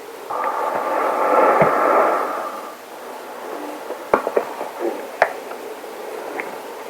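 Breathing through a gas mask: one long breath rushing through the filter for about two and a half seconds, then a scatter of small sharp clicks in the second half.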